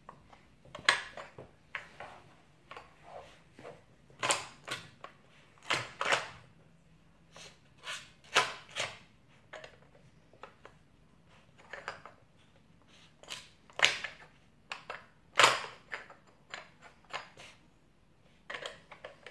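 Hard plastic pieces of a Trixie Flip Board dog treat puzzle clicking and knocking as a Yorkshire terrier noses at its lids, cones and levers to get at treats. Irregular sharp knocks come every second or so, some much louder than others.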